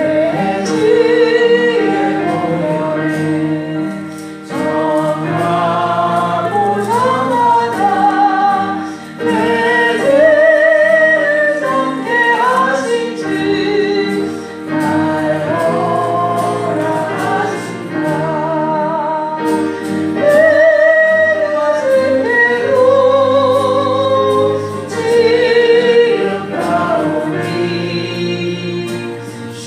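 Worship hymn singing: voices with wavering vibrato carry a gospel melody in phrases over sustained accompaniment chords, with short breaths between the lines.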